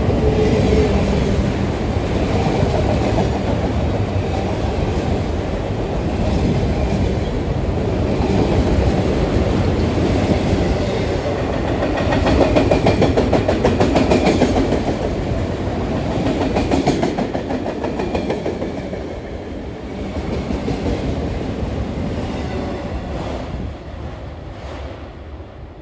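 Freight train cars rolling past close by, a steady rumble with the clickety-clack of wheels over rail joints, most marked about halfway through, fading toward the end.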